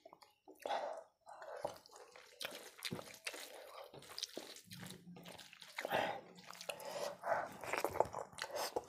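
Irregular wet squishing and small clicks of soft, starchy rice being kneaded and mixed by hand with dal and egg curry on a steel plate.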